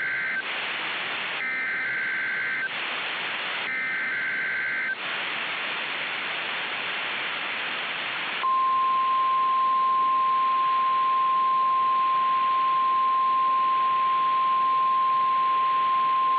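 Emergency Alert System SAME header data tones: short warbling two-tone bursts repeated with radio static hiss between them. About eight and a half seconds in, a steady single-pitch NOAA Weather Radio 1050 Hz warning alarm tone starts and holds, signalling the warning broadcast that follows.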